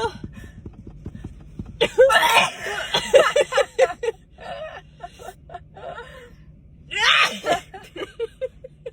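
A person's wordless vocal outbursts, with coughing and sneeze-like sounds, in short repeated bursts. The loudest spells come about two seconds in and again about seven seconds in.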